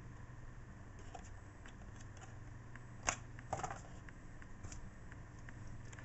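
Light handling noise from a plastic blister pack: a few soft clicks and rustles, with one sharper click about three seconds in and a short cluster just after, over a faint low hum.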